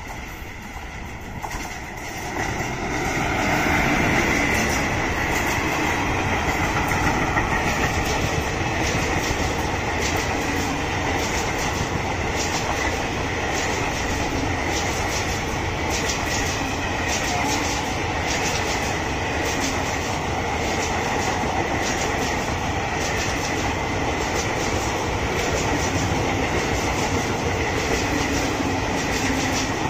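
Electric-hauled Indian Railways passenger train passing close at speed: a rumble that rises over the first few seconds as the locomotive arrives. It then holds steady as the long rake of coaches runs by, with the wheels clattering over the rail joints.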